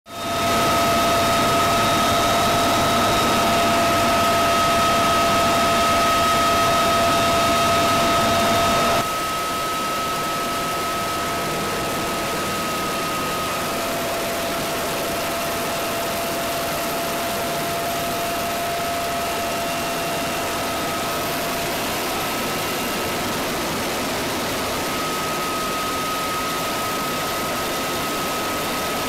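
Steady turbine whine and drone of a military aircraft in flight, heard from aboard: two steady whine tones over an even rush of noise, dropping a little in level about nine seconds in.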